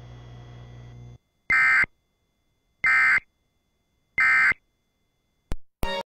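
Emergency Alert System end-of-message code: three short, identical bursts of buzzing SAME digital data, each about a third of a second long and spaced a little over a second apart. They mark the end of the alert broadcast. Before them the steady hum of the radio feed cuts off about a second in, and near the end there is a sharp click and the start of another short sound.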